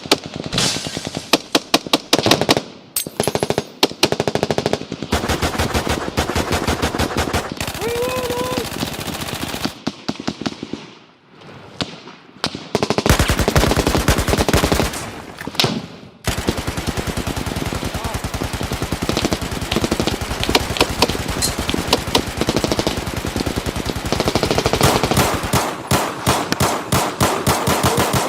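Heavy automatic gunfire: long rapid machine-gun bursts and overlapping shots, with a short lull about ten seconds in before near-continuous firing resumes.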